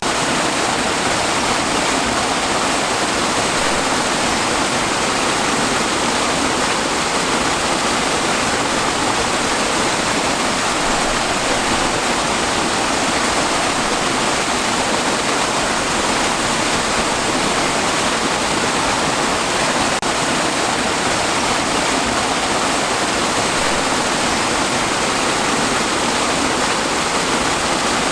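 Waterfall: water pouring and splashing in a steady, dense rush with no changes.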